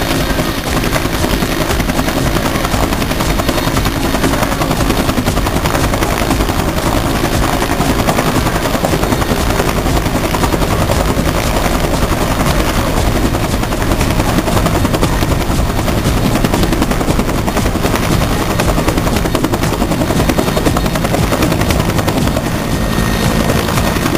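Helicopter running at lift-off power, the steady chop of its rotor filling the sound as it rises off an offshore helideck and flies away.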